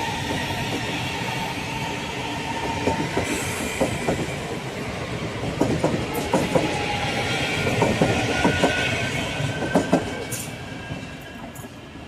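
Electric multiple-unit commuter train pulling out of a station: a motor whine that rises in pitch as it gathers speed, with repeated clicks from the wheels over rail joints. The sound fades over the last couple of seconds as the train draws away.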